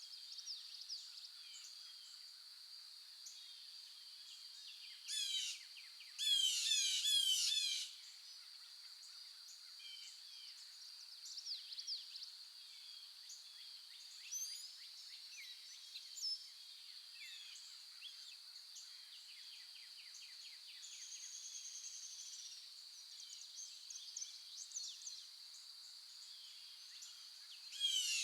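Several wild birds chirping and calling over a steady high-pitched drone. A loud, rapid run of repeated notes comes about five seconds in and lasts to about eight seconds, and another comes near the end.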